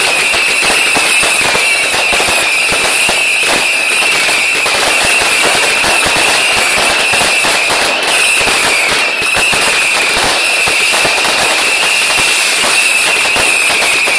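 Fireworks finale barrage: a dense, continuous run of rapid bangs and crackling from many shells and stars going off at once, with a steady high-pitched tone running underneath.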